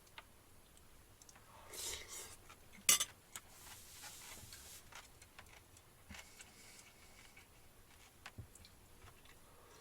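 Cutlery scraping and clinking against a dish of food, with one sharp clink about three seconds in.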